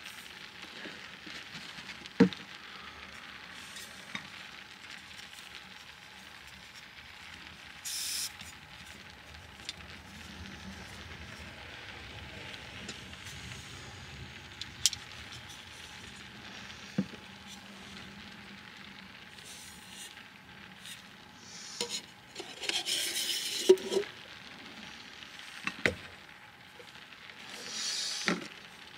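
Scattered small clicks and knocks as the Jetboil stove's cooking cup and its small plastic and metal parts are handled and taken apart, with a cluster of handling noise a little past two thirds of the way through. Under it runs a steady soft hiss.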